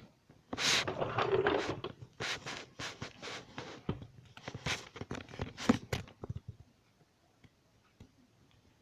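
Close rustling, scraping and knocking handling noise as the camera is moved about by hand, a dense run of scrapes and clicks lasting about six seconds.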